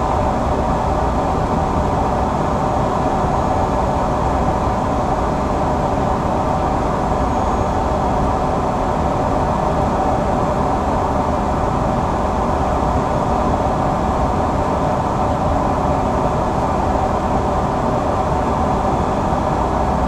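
Steady cockpit noise of an Embraer 175 jet airliner in flight on approach: air rushing past the flight deck over the hum of the engines and systems, at an even loudness throughout.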